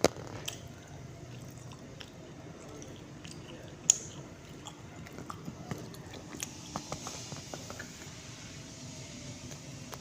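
A person biting and chewing food, with small mouth clicks throughout and one sharp click about four seconds in.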